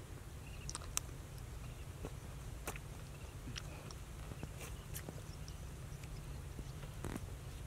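Steady low rumble of wind on the microphone in an open, dried-up pond bed, with scattered faint clicks and crackles.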